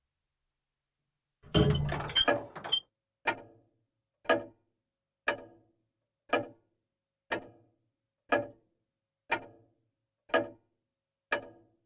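A clock ticking loudly, one sharp tick each second, nine ticks in all. It follows a short, dense clatter of knocks about a second and a half in.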